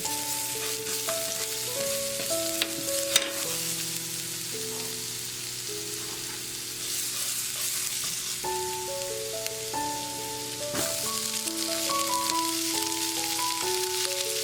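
Butterbur stalks sizzling as they are stir-fried in a pan, with a sharp tap about three seconds in and another near eleven seconds. A simple melody of background music plays over it.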